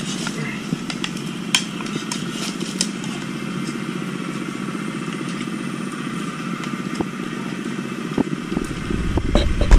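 A steady low drone like a small engine running, with a few light clicks like spoons touching plates.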